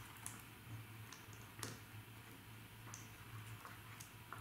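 A few faint, irregular small clicks and taps as a watch bracelet's end link and spring bar are pressed into the case lugs, over a low steady hum.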